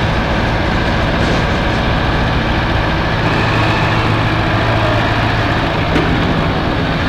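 Heavy machine's engine running steadily at a constant pace, with an even low hum.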